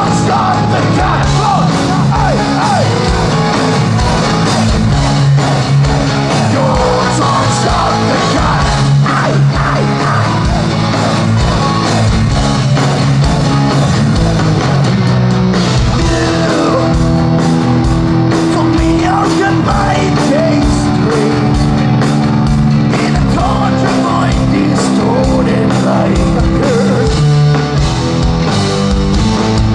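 Heavy metal band playing live at full volume: distorted electric guitars, bass and drums under a sung lead vocal, with no break.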